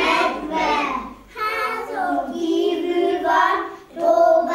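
Young girls singing a children's song together, in short phrases with brief pauses between them.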